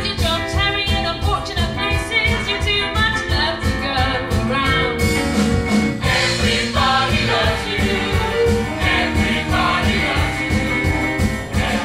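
Musical theatre song: voices singing over a band with a steady beat, the accompaniment filling out brighter about halfway through.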